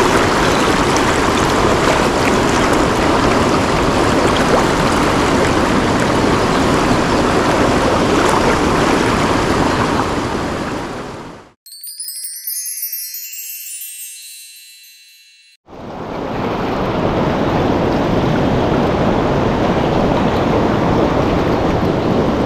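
Mountain stream water rushing steadily. A little past ten seconds in it fades out, and a bright chime sound effect plays for about four seconds, its notes stepping down in pitch. Then the stream fades back in.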